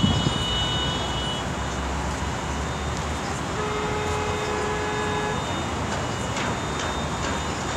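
Heavy city traffic: a steady hum of engines and tyres from a jammed multi-lane road. About three and a half seconds in, a steady pitched tone is held over it for nearly two seconds.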